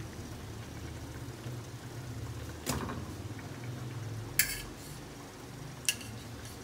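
Three sharp clinks of kitchenware against a wok as fish are set into the broth: one about a third of the way in, the loudest just past the middle with a brief ring, and one near the end. A low hum underneath fades out after the middle.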